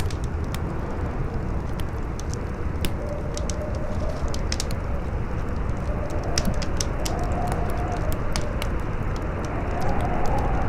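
Strong wind howling over a steady rush, its moaning tone wavering up and down and swelling near the end, with a wood fire crackling in quick, irregular sharp pops.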